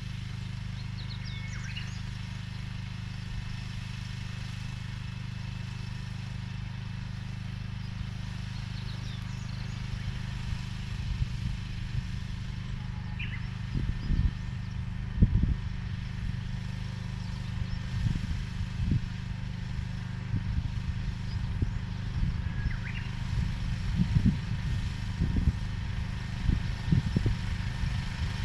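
Small engine of a seedling transplanting machine running steadily while planting corn seedlings. From about ten seconds in, irregular low knocks and clatter from the machine join the drone. A few faint, short high chirps come through now and then.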